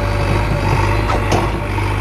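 Heavy diesel engine running steadily at a low, even speed, with a couple of faint short knocks a little past the middle.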